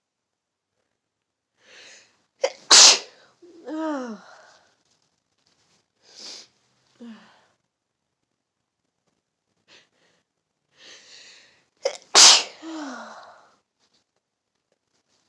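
A person sneezing twice, about nine seconds apart, as part of a sneezing fit. Each sneeze follows a quick intake of breath and trails off into a falling voiced sound, with short sniffs and breaths between them.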